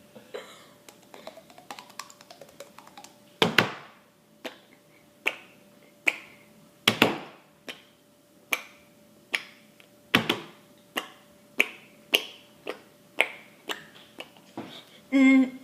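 A person making sharp clicking and popping noises with the mouth, roughly one a second, some much louder than others, with a short voiced sound near the end.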